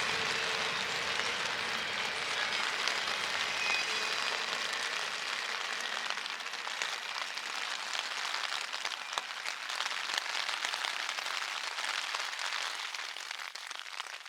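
Freezing rain and sleet pattering steadily in a fine crackle of small ice hits. A train's low rumble fades out over the first few seconds.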